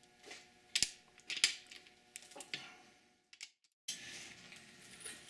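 A few sharp metallic clicks and clinks from a hand wrench and socket turning the main-cap stud nuts on a Buick V6 engine block. The two loudest come about a second in.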